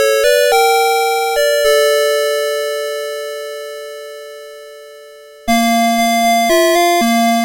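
CITIZEN Melody Box 30 series alarm clock's electronic melody alarm playing: a few quick notes, then a long final note that fades away. About five and a half seconds in, the next melody starts abruptly with a run of short notes.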